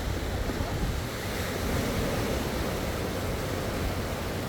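Ocean waves washing ashore as a steady wash of surf that swells about a second and a half in, with wind rumbling on the microphone.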